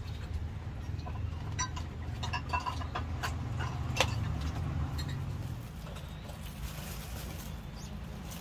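A low steady rumble that eases off about six seconds in, with scattered light clicks and one sharper click about four seconds in.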